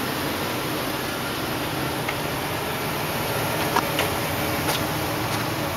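The 2002 Chevrolet Express van's 5.7-litre Vortec V8 idling: a steady, even running sound with no change in speed.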